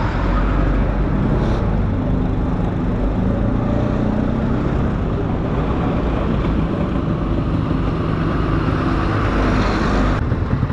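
Two-stroke LML NV scooter engine running at low speed in slow traffic, alongside trucks' engines. About ten seconds in, the sound changes abruptly to a faster, evenly pulsing engine note.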